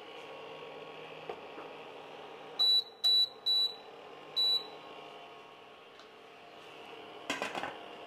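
Countertop electric hotplate's control panel beeping four short high beeps, one pitch each, as it is switched on and set to heat a pot of water. A faint steady hum runs underneath, and a brief clatter of the pot comes near the end.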